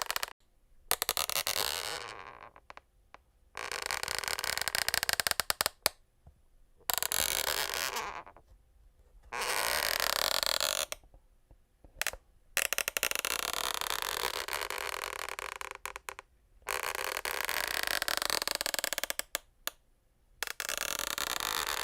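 Wooden parquet floor creaking under weight again and again: long, wavering creaks of one to four seconds each, with short pauses between them.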